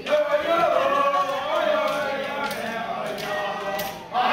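A voice chanting in long held notes that slide up and down in pitch, with a short break near the end.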